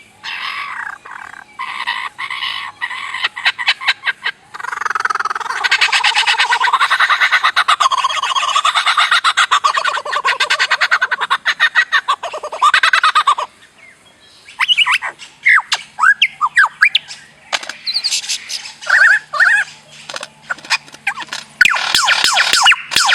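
Many birds calling together: a dense, loud stretch of squawking chatter for much of the first half, then separate chirps with quick rising and falling notes, and dense rapid chatter again near the end.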